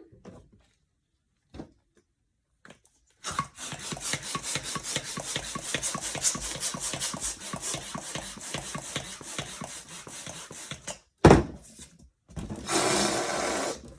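Electric balloon inflator blowing up a latex balloon: a dense, rapidly pulsing rush for about eight seconds. A sharp knock follows, then a shorter second burst of air near the end.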